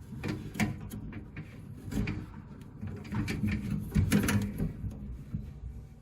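Irregular clicks, knocks and rattles of dryer parts being handled while the drum belt and idler pulley spring are worked into place by hand, the loudest cluster of knocks about four seconds in.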